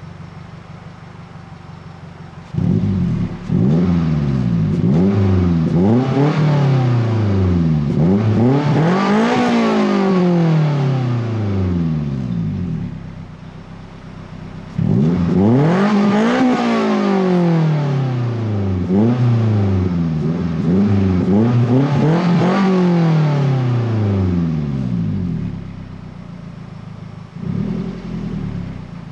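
Daihatsu Sirion (Duet) 1.3 L K3-VE2 DOHC 16-valve four-cylinder heard at the tailpipe through a BRAVE aftermarket muffler, free-revved while stationary. It idles, then gets two bursts of repeated revs that rise and fall back, each followed by a return to idle, and a short blip near the end.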